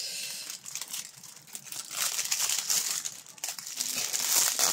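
Plastic packaging of a diamond painting kit crinkling and rustling as it is handled and unwrapped, louder near the end.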